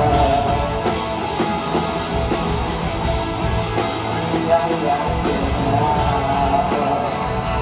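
Live rock band playing at a concert, with guitar and a wavering melody line; the music cuts off abruptly near the end.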